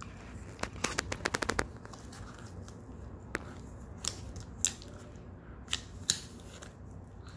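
A Shetland sheepdog gnawing a hollow cow horn: a quick run of sharp clicks and crunches of teeth on horn about a second in, then single sharp cracks every second or so.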